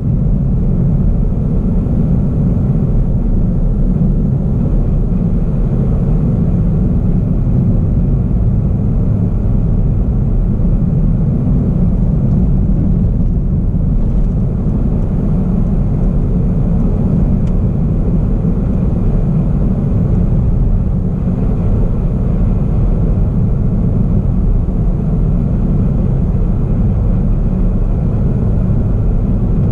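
Steady low rumble of a car driving at an even speed on a paved road, heard from inside the cabin: engine and tyre noise.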